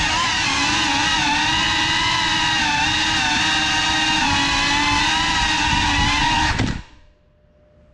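FPV drone's electric motors and propellers whining at a steady pitch that wobbles slightly with throttle. The sound drops away abruptly nearly seven seconds in as the motors stop.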